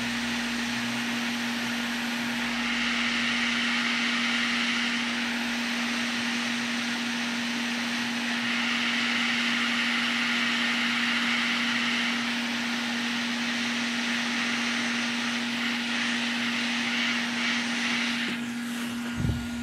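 Hot air rework station blowing steadily at high airflow, a loud rushing hiss over a steady motor hum, as it heats the PS5 board to desolder the HDMI port. A soft knock comes near the end.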